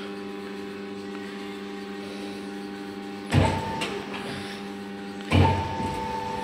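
Bode 5,000 kg welding positioner's electric drive running with a steady hum. About three seconds in and again two seconds later, a heavy clunk, each followed by a higher motor whine; the second whine carries on.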